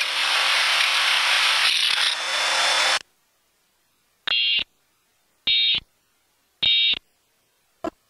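A loud, steady hiss of noise that cuts off abruptly about three seconds in. After a short silence come three short, identical bursts of warbling data tone about a second apart: the Emergency Alert System end-of-message tones that close the alert. A brief blip follows just before the end.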